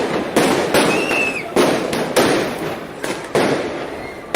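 Fireworks going off: a string of sharp bangs, roughly half a second to a second apart, each trailing off in an echo, with a brief whistle about a second in.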